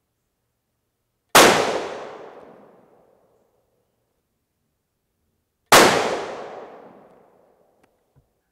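Two shots from a .223 Remington 700 BDL Varmint Special rifle, about four seconds apart, each with a long echo dying away. Two faint clicks near the end.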